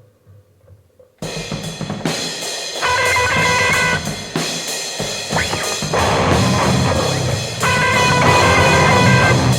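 Grunge-punk band playing an instrumental passage: a near-quiet second with faint drum taps, then the drum kit and full band come in loud and abruptly about a second in.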